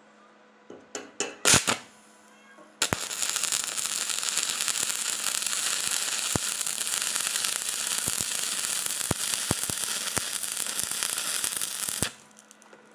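Electric arc welding: a steady, sizzling crackle that starts abruptly about three seconds in and cuts off near the end, after a few sharp metal knocks.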